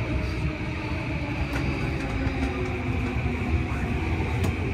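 Yamanote Line electric commuter train running past the platform close by, a steady rumble with two sharp clicks, one about a second and a half in and one near the end.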